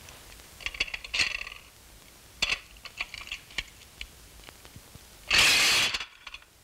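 Dishes clinking and knocking together as they are washed at a sink, then, a little over five seconds in, a pile of china plates crashes to the floor and shatters, the loudest sound, cutting off sharply.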